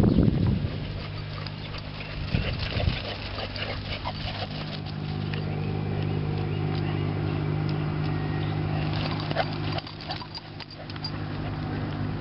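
Two dogs playing: scattered thuds and scuffles of their running on grass, over a steady low hum.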